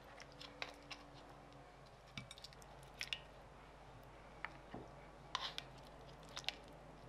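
Faint, scattered light clicks and taps of kitchen food preparation, utensils and food being handled on a work surface, about one every second with short pauses between.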